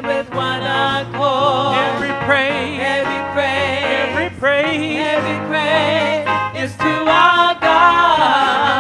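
Praise team and congregation singing a gospel worship song with band accompaniment, voices holding notes with vibrato over sustained bass notes.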